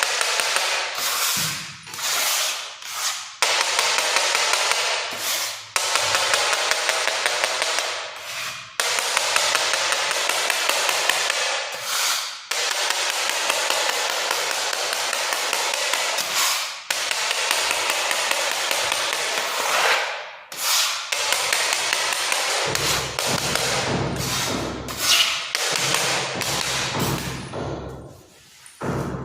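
Hammer drill running with a rapid hammering rattle, in runs of a few seconds broken by short pauses.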